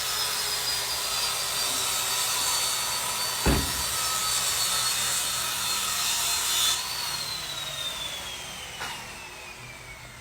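Washing machine running with a steady whirring hiss and a high whine, and a single knock about three and a half seconds in. About seven seconds in the hiss drops away and the whine slowly falls in pitch as the motor winds down.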